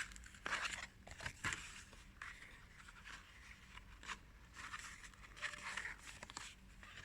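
Faint rustling and scraping of paper and cardboard packaging being handled, with scattered light clicks and taps.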